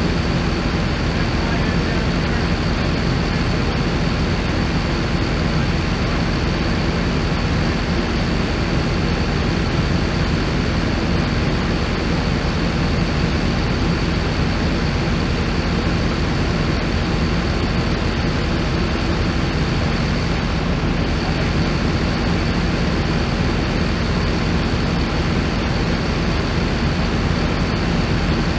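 Engine running steadily at one speed, without revving, with a thin steady high whine over it.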